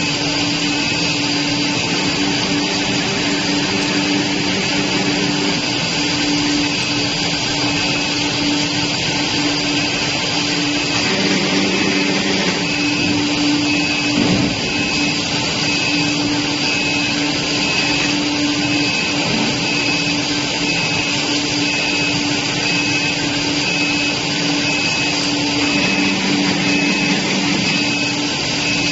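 Cast stretch film extrusion line running: a steady machine noise with a constant low hum and a constant high whine. In the second half a short high pip repeats at an even pace.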